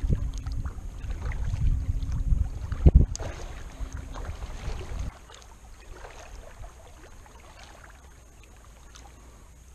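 Kayak paddling: paddle strokes and water against the hull, with wind rumbling on the microphone and a sharp knock about three seconds in. After an abrupt cut about five seconds in, only quieter water sounds with faint ticks remain.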